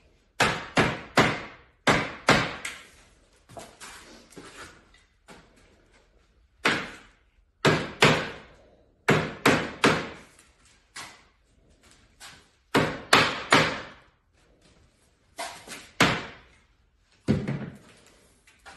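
A mallet hammering PVC pipe into its fittings, seating the joints of a pipe panel. The sharp strikes come in quick runs of two to four, with fainter taps between the runs.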